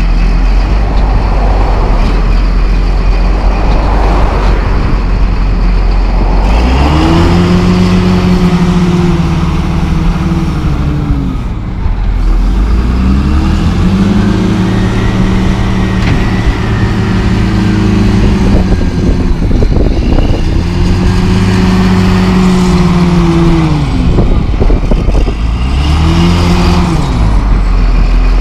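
John Deere 644H wheel loader's diesel engine revving up and dropping back as it works, its pitch rising and falling in four long swells over a steady low rumble. Scattered knocks and rattles come in during the later swells.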